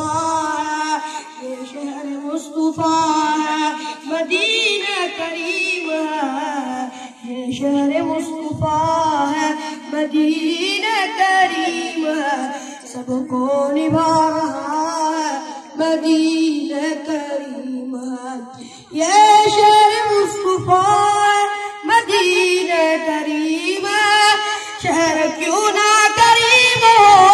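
A child singing a naat, an Urdu devotional poem in praise of the Prophet Muhammad, unaccompanied into a microphone. The voice moves in long, wavering melodic phrases with short breaths between them.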